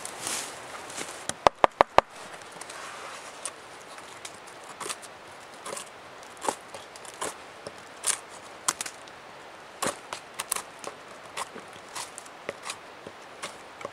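A knife blade cutting and prying into a dry, rotten pine stump, splitting off decayed wood in short, irregular cracks and scrapes, about one or two a second. Near the start come four sharp clicks in quick succession.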